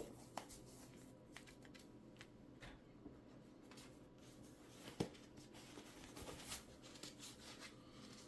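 Faint rustling from disposable gloves being pulled on and adjusted over the hands, with two light clicks, about half a second in and about five seconds in.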